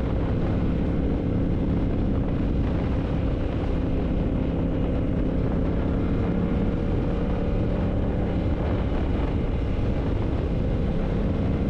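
Yamaha MT-07's parallel-twin engine running at a steady cruising speed, its note holding level throughout.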